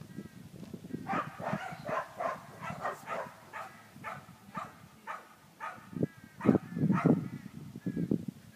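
A dog barking over and over in quick short barks, about three a second, with a few low thumps about six to seven seconds in.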